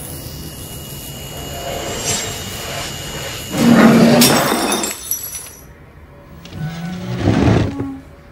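Glass shattering in a loud crash about three and a half seconds in, as the glass of a hanging ceiling lamp bursts; a second, shorter crash follows around seven seconds in.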